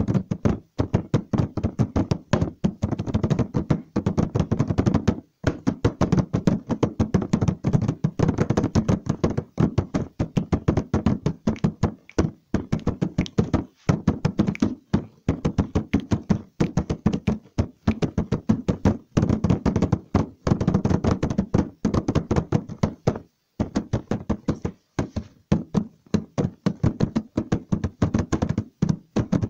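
Rapid, dense knocking and tapping, many strokes a second, broken by a few brief pauses.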